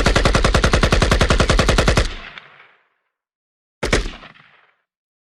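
Machine-gun sound effect: a rapid burst of automatic fire, about a dozen shots a second, that stops about two seconds in and trails off in an echo, then a short second burst near four seconds that dies away.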